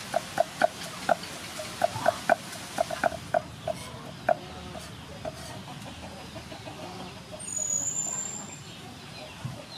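Cleaver chopping garlic on a wooden chopping board: quick, uneven knocks of the blade striking the wood, about two to three a second, thinning out and stopping about five seconds in.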